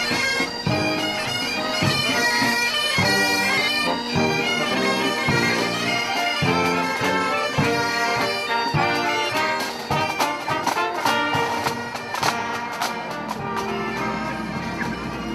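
Bagpipes playing a melody in a run of held notes, with a cluster of sharp taps about two thirds of the way in.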